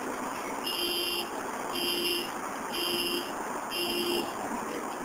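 An electronic beeper sounds four times, about once a second, each beep a little over half a second long, over a steady background rush.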